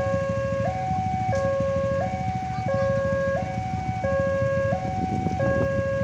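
Railway level crossing warning siren sounding a steady two-tone high-low alarm, switching pitch about every 0.7 seconds, over a steady low rumble.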